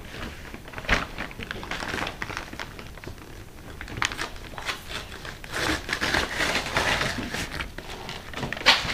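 A parcel being unpacked by hand: packaging crinkling and rustling, with a few sharp knocks, one about a second in and a louder one near the end.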